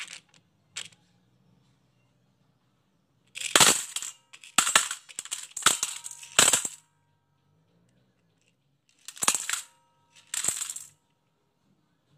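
Glass marbles and small plastic beads tipped from a plastic box into a stainless steel bowl, clattering in two bursts, a longer one about a third of the way in and a shorter one near the end, with the bowl ringing briefly.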